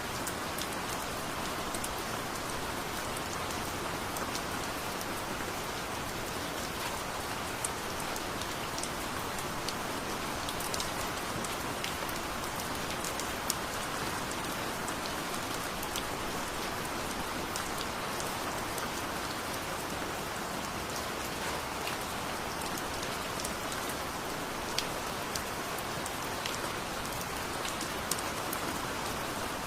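Heavy rain falling steadily, with sharp ticks of single drops striking close by scattered throughout.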